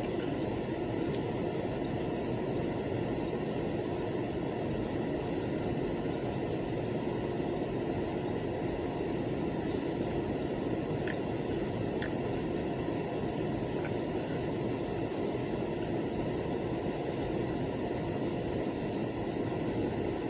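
Buffalo & Pittsburgh local freight train cars rolling past with a steady, even rolling noise.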